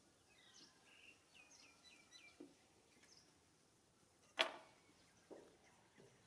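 Faint, quick high chirps of small birds over the first three seconds. About four seconds in there is one sharp tap, and a softer knock a second later, as cut watermelon and a kitchen knife are handled on a plate on a wooden table.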